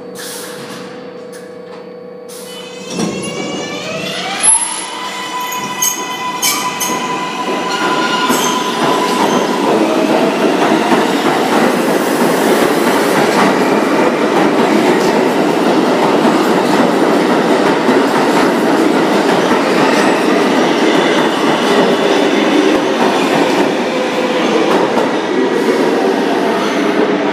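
R142-series New York subway train pulling out of the station: its propulsion whine starts about three seconds in and rises in pitch, then levels off. Then a loud, steady rumble of wheels on rail sets in as the cars run past and out.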